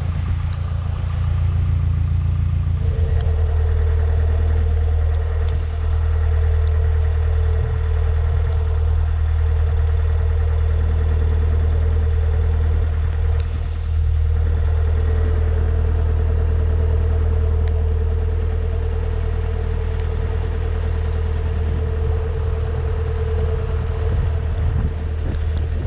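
Narrowboat's inboard diesel engine running steadily, a low drone, with a steady higher hum joining about three seconds in.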